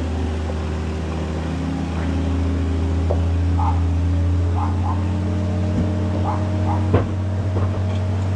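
Boatyard travel lift's diesel engine running steadily at an even pitch. A few short high chirps come over it, and there is a sharp knock about seven seconds in.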